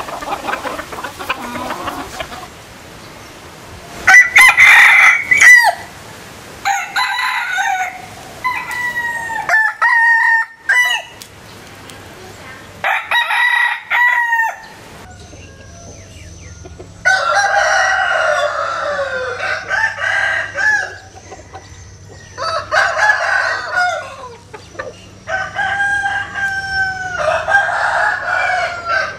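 Vietnamese bantam (gà tre) roosters crowing again and again, one short crow after another. From about halfway, several crows overlap, with a low steady hum beneath them.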